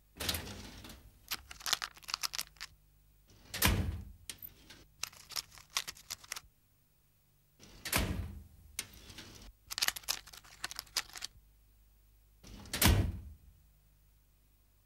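Metal filing-cabinet drawers sliding and banging as cartoon sound effects: runs of rattling clicks and clatter, broken by three heavy slams about four seconds apart.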